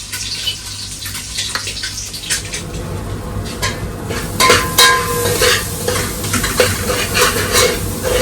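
Onions frying and sizzling in a pan, stirred with a metal spoon that scrapes and clinks against the pan. The scrapes and clinks come more often from about two seconds in.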